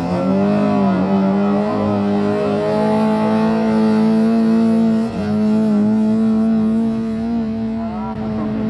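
Rally car engine held at steady high revs as the car pulls away from a standstill on gravel and drives off, with a brief dip about five seconds in and the pitch rising again near the end.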